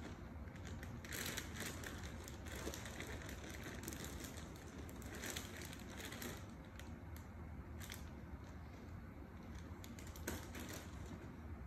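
Faint rustling and crinkling of something being handled, with a handful of short, louder crackles at irregular moments.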